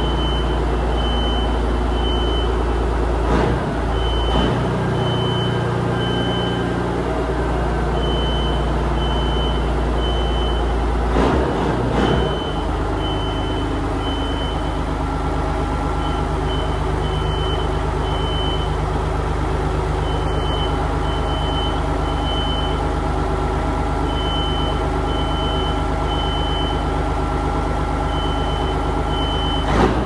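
Caterpillar 3406B inline-six diesel in a Peterbilt 359 idling through straight pipes on its first run after an engine swap. Its note shifts after a brief swell about twelve seconds in. Over it a fire alarm beeps high and shrill in repeating groups of about three.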